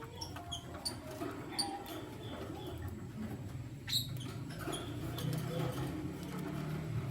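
Lovebirds giving short, high, squeaky chirps, scattered singly, the sharpest about four seconds in, over a low steady hum.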